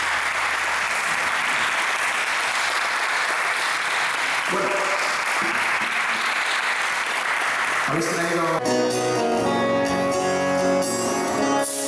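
Audience applauding. About eight seconds in the applause gives way to music with several held notes sounding together.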